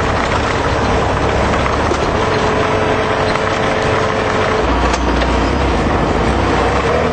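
Air-cooled flat-four engine of a 1976 VW Beetle running under way on a dirt road, heard from inside the cabin along with loud tyre and body rattle noise. The engine note holds steady, then changes about four and a half seconds in as the low rumble grows.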